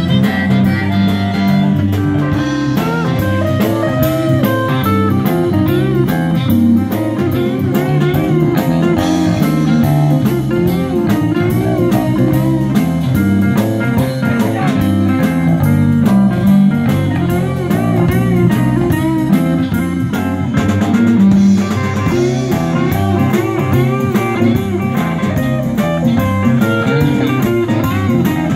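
Live band playing a blues number with no vocals: electric guitar, a Rickenbacker-style semi-hollow, over bass and drum kit.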